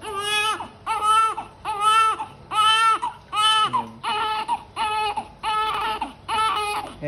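Newborn baby crying in a steady rhythm of short, high wails, about one every three-quarters of a second.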